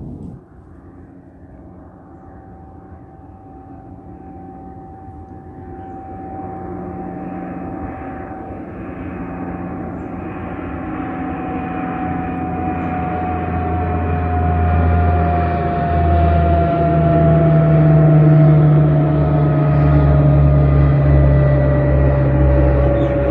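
De Havilland Canada Dash 8-300 twin-turboprop airliner climbing out after takeoff and approaching, its engines and propellers growing steadily louder. A deep propeller hum sits under a whine that slowly falls in pitch as the aircraft nears.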